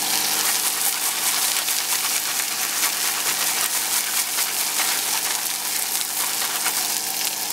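Beef steak searing in hot oil in a frying pan over high heat: a steady crackling sizzle.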